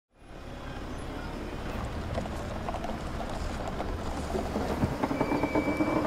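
Sound effect of a construction machine's engine rumbling, with rattling and clanking over it, slowly getting louder; a thin steady tone joins about five seconds in.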